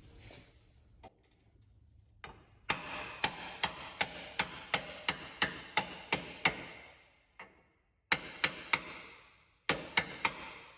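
Hammer striking a socket used as a driver to seat a new axle seal in a GM 10-bolt rear axle housing. A run of about a dozen ringing metallic blows, roughly three a second, comes after a couple of quiet seconds. It pauses, then comes in two shorter groups of about three blows each.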